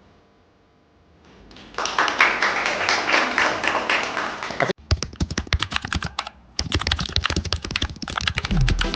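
Rapid, dense clacking of computer keyboards being typed on fast, starting about two seconds in, with an abrupt break a little before halfway and another short gap later.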